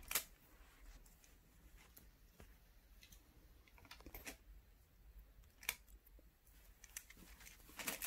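Near silence with a few faint, spread-out clicks of plastic magnetic building tiles being handled and set onto a tower.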